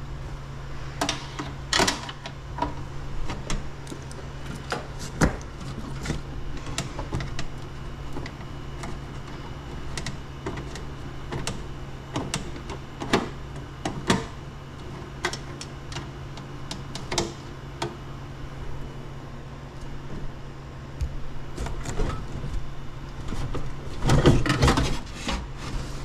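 Irregular clicks, taps and rattles of hands handling wiring and connectors inside an air handler's control panel, with a denser, louder burst of handling noise near the end. A steady low hum runs underneath.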